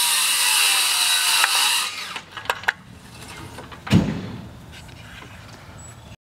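Cordless circular saw cutting through wood with a high-pitched cutting noise, ending about two seconds in. Then a couple of light clicks and a single thump.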